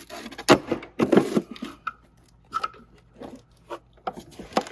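Plastic parts of a vacuum being handled and fitted together: scraping and scattered clicks and knocks, the loudest scrape running about a second in.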